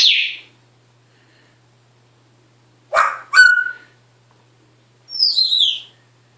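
Pet parrot making three separate calls: a sharp falling call at the start, a harsh, noisier call with a short tone after it about three seconds in, and a two-part whistle gliding downward near the end.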